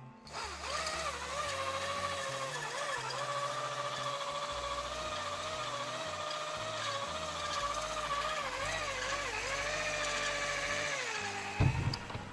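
Electric drill spinning a stone cylinder hone in the cylinder bores of a Ford 4.6-litre two-valve engine block. The motor whine wavers and dips in pitch as the load on the hone changes, and stops shortly before the end, followed by a low thump.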